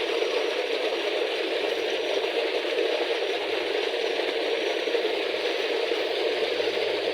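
Steady rushing noise with no clear rhythm or distinct strikes.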